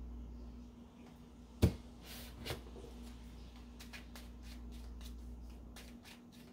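Deck of tarot cards shuffled by hand: a sharp knock about a second and a half in, then a run of quick, light card clicks and flicks.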